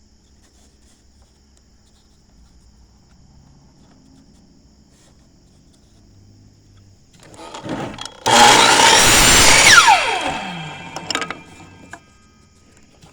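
Electric power saw started about seven seconds in, cutting through a short piece of 2x4 for about two seconds. After the cut, the blade winds down with a falling whine.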